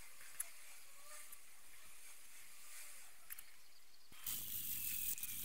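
Faint scraping of a filler spreader dragging body filler over a metal lamp top, with small clicks and squeaks of the blade. About four seconds in, a louder, steady rasping noise suddenly takes over.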